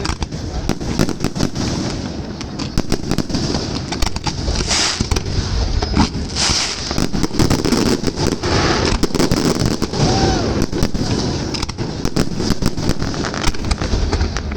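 Fireworks salute: a dense, unbroken run of bangs and crackling bursts.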